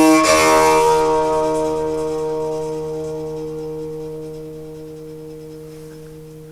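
Bowed frame of a homemade metal harp fitted with two large aluminium plates. A short scraping bow stroke at the start sets the metal ringing in several steady low tones, which slowly die away.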